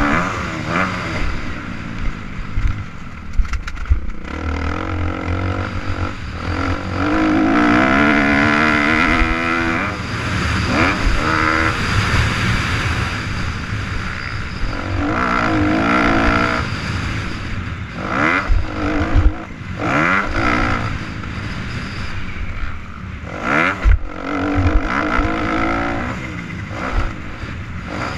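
Dirt bike engine revving up and falling away again and again as it is ridden through the gears, heard from the rider's helmet with wind rush and a few sharp knocks.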